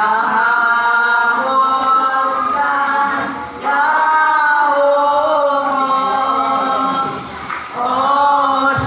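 A group of voices singing a gozos, a Filipino devotional hymn, in long held phrases with two short breaks for breath.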